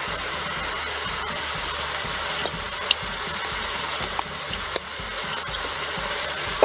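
Minced meat frying in a stainless steel pot, giving a steady, even sizzling hiss with a few faint clicks.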